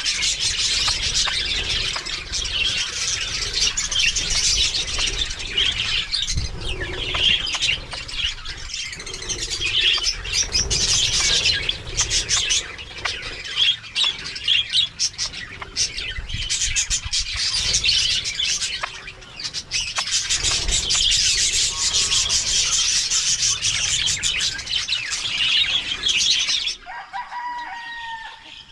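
A dense chorus of small aviary birds, parakeets, zebra finches and Java sparrows, chirping and chattering nonstop, with many short clicks. Shortly before the end the chorus cuts off, leaving a few single, lower calls.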